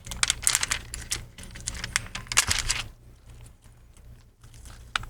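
Protective plastic film being peeled off a new laptop screen assembly: a rapid run of crackling, clicky peeling noises for about three seconds, then a few quieter clicks of handling.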